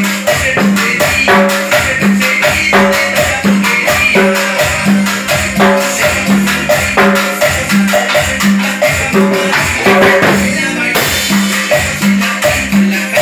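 Cumbia song playing with a steady beat and shaker, with timbales and a cowbell struck with sticks along to it.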